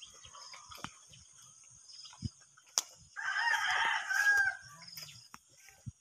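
A rooster crowing once, for about two seconds, a little after halfway, with a few faint clicks earlier on.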